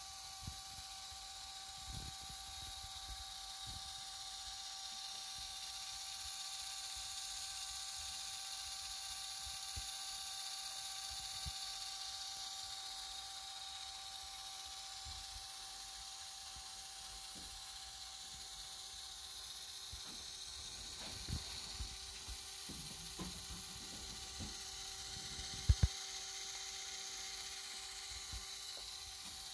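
Steady electric hum of two thin tones over a faint hiss, broken by a few soft knocks and two sharp clicks about 26 seconds in.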